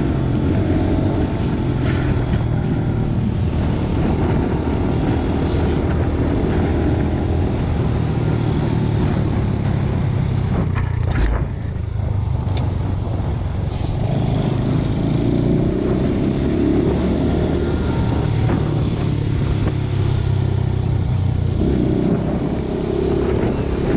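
Enduro motorcycle engine running steadily while riding, easing off briefly about halfway through, then pulling again.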